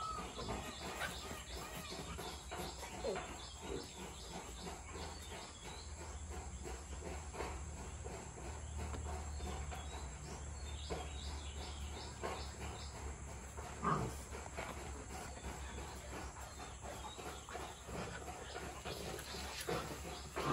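A Rottweiler mother and her eight-week-old puppy play-fighting on a concrete floor: scuffling and small clicks of movement, with one brief dog vocalisation about fourteen seconds in, over a steady high insect drone.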